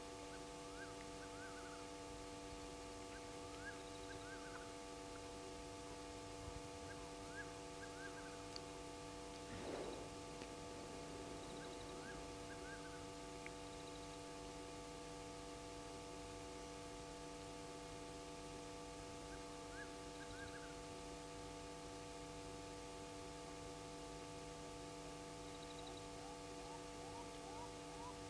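Faint night-time waterhole ambience: small clusters of short rising chirps from calling animals, over a steady electrical hum and hiss from the camera's audio. About ten seconds in there is a brief, louder, noisy rustle. Near the end a quicker run of rising chirps begins, about three a second.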